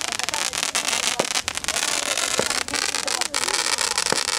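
Fireworks going off: a dense crackling hiss broken by many sharp pops and bangs.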